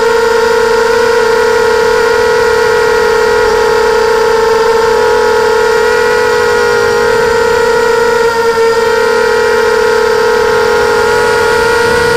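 Brushless motors and propellers of a 250-size FPV racing quadcopter whining loudly at a near-steady pitch, heard through the onboard camera's microphone; the pitch sags slightly about halfway through.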